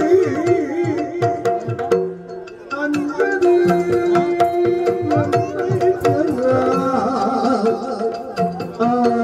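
Yakshagana drums played in rapid, dense strokes over a steady drone. The music drops back briefly about two seconds in, then picks up again.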